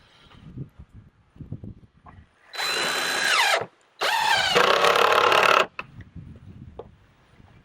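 Power drill running in two bursts, about a second and then about a second and a half long. Its motor whine falls away as the trigger is let go at the end of the first burst, and rises at the start of the second.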